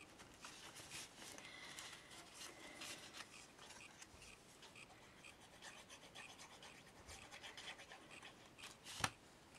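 Faint rustling and scraping of paper and card pieces being handled and pressed down on a table, with one sharp tap near the end.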